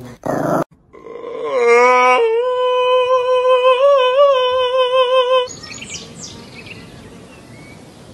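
A long held vocal note, sliding down in pitch and then held for about three seconds with a slight waver, ending abruptly; then a quieter outdoor background with a few faint bird chirps.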